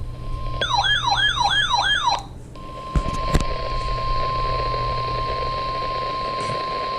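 Emergency alert audio from a radio broadcast. A brief steady tone gives way to a warbling, siren-like tone that sweeps up and down about three times a second for about a second and a half. After a short break with two clicks, a long steady Emergency Alert System attention tone sounds, signalling that a severe thunderstorm warning is about to be read.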